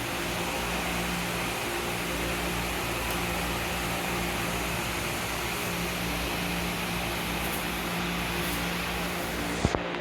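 Steady mechanical hum and hiss, like a running fan, with two sharp clicks close together near the end.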